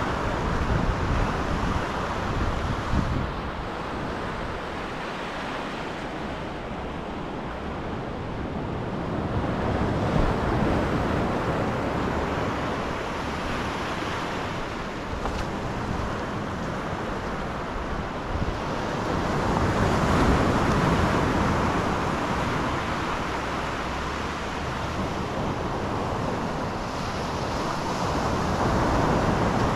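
Sea waves breaking and washing up the beach, the surf swelling and fading about every ten seconds, with wind rumbling on the microphone.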